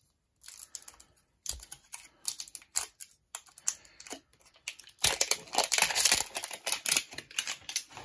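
Thin printed foil wrapper being peeled and torn off a plastic toy egg by hand, crinkling and crackling in irregular bursts. It is densest and loudest from about five seconds in.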